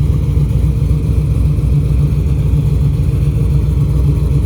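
A vehicle's steady low rumble of engine and road noise, even throughout with no revving or change in pitch.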